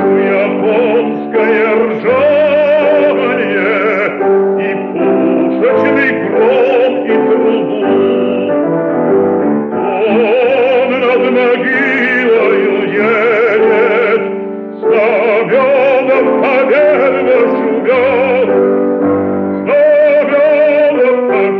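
Bass voice singing an art song with piano accompaniment, in an operatic style with a wide vibrato. The voice breaks off briefly about two-thirds of the way through, then goes on.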